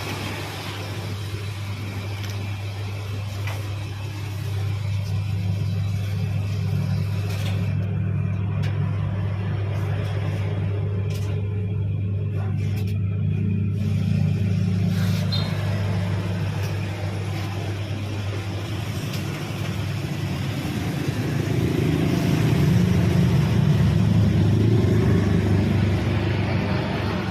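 Washing machine running with a rough, steady low rumble and hum from its turning drum, swelling louder for a few seconds near the end; the drum is damaged.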